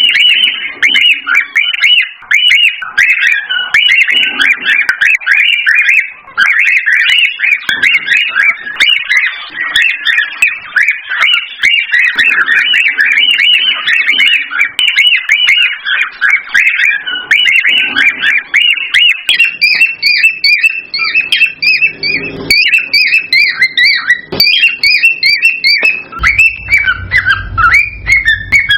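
Cockatiels chirping and whistling nonstop in rapid short notes that slide up and down in pitch. About two-thirds of the way through, a second, higher-pitched series of calls joins in, and a low hum comes in near the end.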